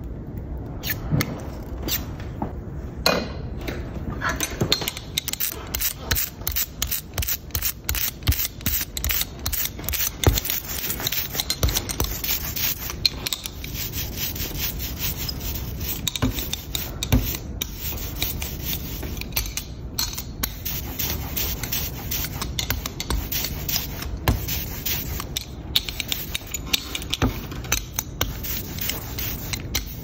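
Hand brayer rolling black rubber-base letterpress ink out on the ink slab: a dense fine crackling of the roller working through the ink, in repeated back-and-forth strokes.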